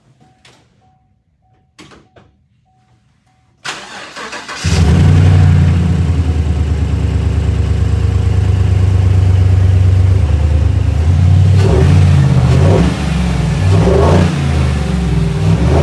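Chevrolet Silverado V8 with a Stainless Works cat-back true-dual exhaust cranking over about four seconds in, catching and idling, then blipped unevenly several times. It is running on only four of its eight cylinders because some spark plug wires were left disconnected, and the owner calls the sound a pile of shit. Before the start, a short chime sounds repeatedly.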